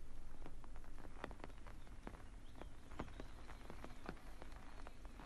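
Quiet outdoor ambience: scattered, irregular sharp clicks and ticks, a few to several a second, over a faint steady hiss.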